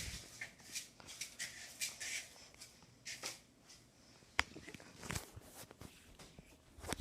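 Faint handling and rustling noises, with a few short sharp clicks, the clearest two about four and a half and five seconds in.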